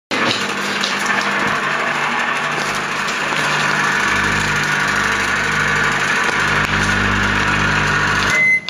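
Microwave oven running with a steady hum and fan noise, starting abruptly; near the end it cuts off and a short high-pitched beep sounds.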